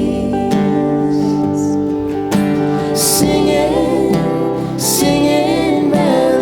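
Music: a gentle acoustic song with acoustic guitar strumming under sustained melody notes.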